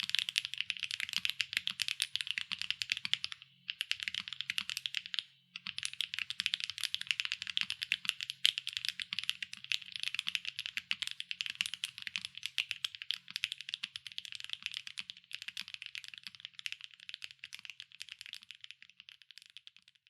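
Fast continuous typing on a SAAG65 mechanical keyboard with HMX Jammy linear switches, an aluminium plate and O-ring mount, and double-shot PBT/ABS keycaps: a dense stream of key clacks. There are two short pauses, about three and a half and five seconds in, and the typing grows quieter toward the end.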